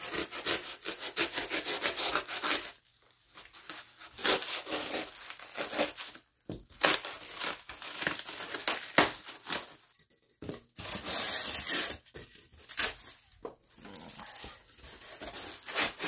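Plastic stretch wrap and foam packing being cut with a utility knife and pulled apart by hand: irregular bursts of crinkling and tearing, with short pauses in between.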